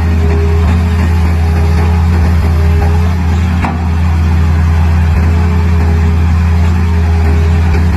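Hydraulic crawler excavator's diesel engine running steadily at close range, a low even hum, while it digs out a pond.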